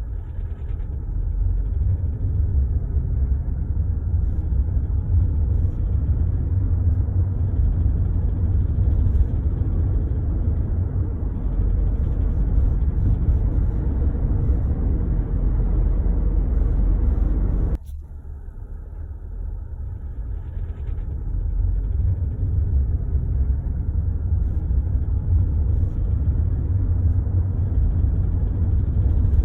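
Skoda Octavia A7 running with a heavy low rumble as the accelerator is pressed, carrying the knock that comes on pressing the gas pedal; the owner does not know the cause. The rumble drops off suddenly a little past halfway, then builds back up.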